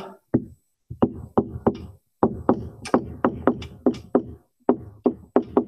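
Stylus tapping on a tablet screen during handwriting: an irregular run of short, sharp taps, about three to four a second, with brief pauses between letters.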